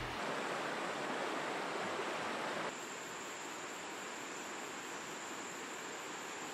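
Faint steady rush of a shallow river running over rocks. About two and a half seconds in it drops a little in level, and a thin, steady high tone carries on above it.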